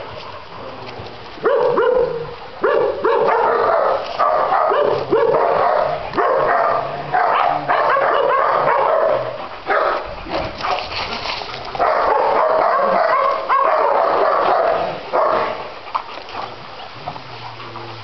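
Dogs barking and yipping as they play, in repeated loud bouts of a second or two that die down near the end.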